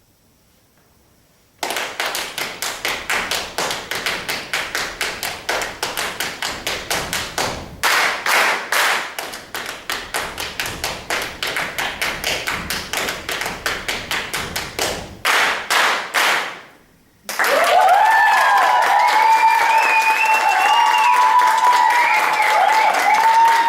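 Fast, even rhythm of sharp taps and claps, about four a second, with louder flurries about eight and sixteen seconds in, that stops suddenly. Then comes loud applause with cheering.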